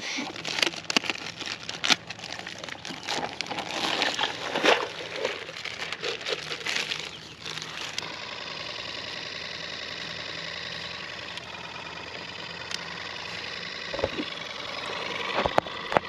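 Plastic bag crinkling and water splashing as minnows are tipped into a plastic minnow bucket. About halfway through, the bucket's small electric aerator pump starts with a steady buzzing hum while it bubbles air through the water.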